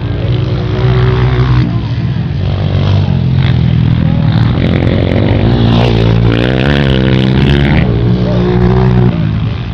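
Dirt bike engine, a Honda CRF230's single-cylinder four-stroke, revving under load on a motocross ride. Its pitch holds, climbs and drops repeatedly, wavering quickly up and down through the middle stretch.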